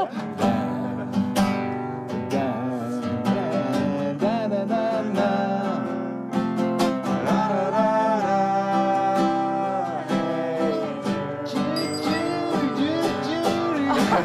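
Nylon-string classical guitar strummed in quick, dense strokes, playing chords in a steady rhythm.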